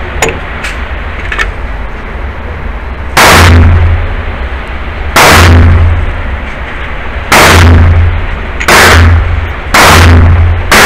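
Gunshots at an indoor shooting range fired from other lanes: five sharp, very loud reports spaced one to two seconds apart, with a sixth at the very end. Each shot rings on in the enclosed range. A few faint small clicks come before the first shot.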